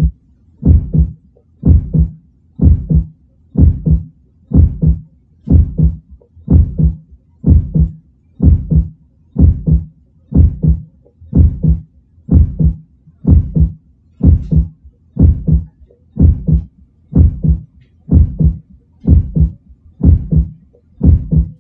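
Heartbeat sound effect: a steady lub-dub, each beat a double thump, about once a second.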